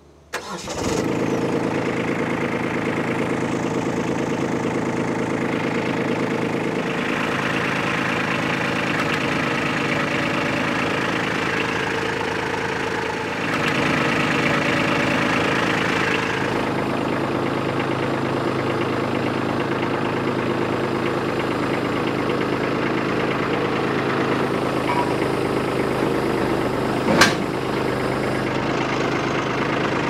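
Kubota B2601 compact tractor's three-cylinder diesel engine starting with a brief crank and then idling steadily. It gets a little louder about 13 seconds in, and a single sharp knock sounds near the end.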